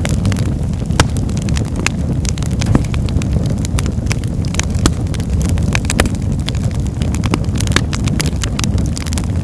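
Fire crackling, with irregular sharp pops over a steady low rumble.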